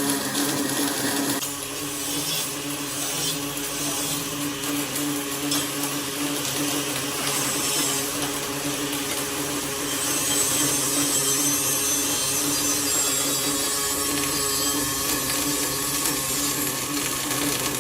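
CNC welding machine running a programmed weld: a steady machine hum under continuous hissing, crackling noise. The sound shifts about 1.5 s in and grows a little louder and brighter around ten seconds in.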